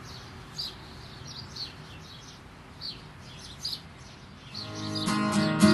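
Small birds chirping, short falling calls about once a second over a steady background hiss. Near the end, acoustic guitar music fades in and grows louder.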